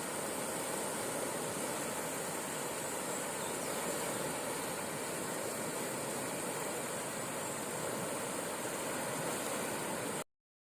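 Steady roaring rush of a fast tidal current: seawater pouring through a narrow strait on the ebb of a spring tide. It cuts off abruptly about ten seconds in.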